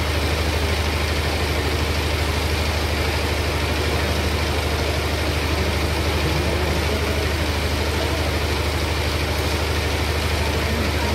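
An engine running steadily, a low even hum with a fast regular pulse that does not change.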